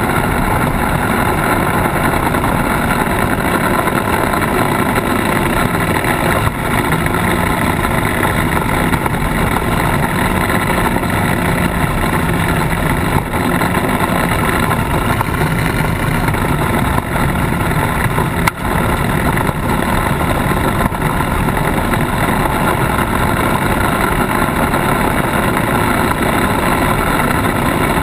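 Polaris RZR side-by-side driving over a gravel and dirt track: steady engine and drivetrain noise mixed with tyre noise on the loose surface, heard from a camera on its front bumper.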